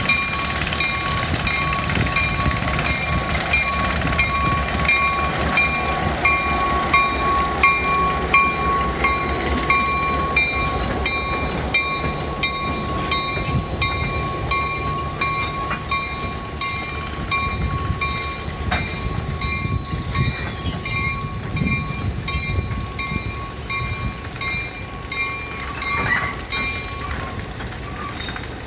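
Diesel switcher locomotive hauling passenger coaches past at low speed, its bell ringing in even strokes about three every two seconds over a low engine and wheel rumble. The bell stops near the end while the coaches keep rolling.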